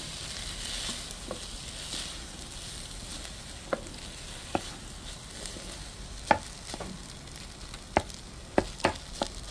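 Fried rice sizzling in a hot pot while being stirred with a wooden spatula. From about four seconds in, the spatula knocks sharply against the pot, with several quick knocks near the end.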